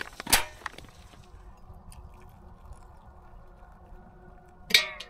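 Stovetop camping kettle just off the boil being handled: a sharp clunk about a third of a second in, then faint sounds of hot water being poured into a mug, and another short sharp sound near the end.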